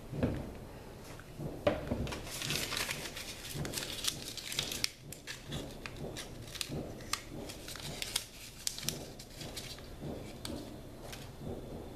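Handling noise from a Bushmaster Carbon 15's polymer upper receiver being worked by hand: a dense spell of crinkling and rustling from about two to five seconds in, with scattered light clicks and knocks of plastic parts throughout.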